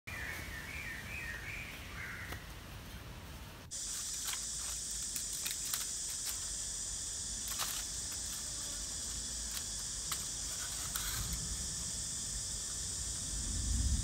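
Tropical forest ambience: a few short bird chirps at first, then from about four seconds in a steady, high insect drone, with scattered faint clicks and a low rumble near the end.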